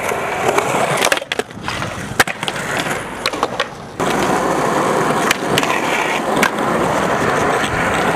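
Skateboard wheels rolling on concrete, with several sharp clacks of the board striking the ground, the loudest about two seconds in. The rolling sound changes abruptly about four seconds in.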